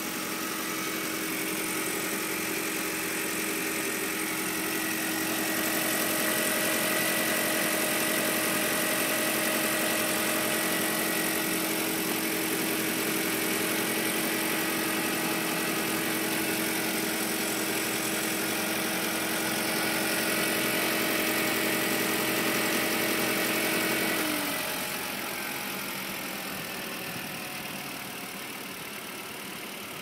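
Volkswagen 1.8T turbocharged four-cylinder engine idling steadily on a cold start, with the secondary air pump's steady whine over it. The whine dips in pitch and cuts out about three-quarters of the way through, and the engine sounds quieter after it. The repaired pump no longer squeals.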